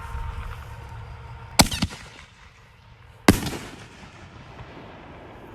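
Fireworks going off: two sharp bangs, the first about one and a half seconds in with a smaller one just after it, the second about three seconds in, each dying away in a short echo.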